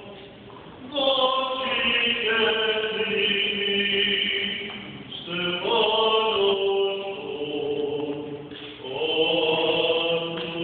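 Orthodox liturgical chanting: voices hold long notes in slow phrases, with a new phrase starting about a second in, again midway and again near the end.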